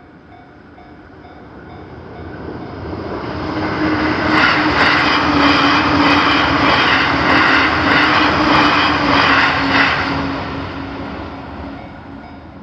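A train passes over a Japanese railway level crossing. It builds to a loud, rhythmic clatter of wheels for about six seconds and then fades away. Underneath, the crossing's warning bell keeps ringing in steady pulses, heard plainly at the start and again near the end.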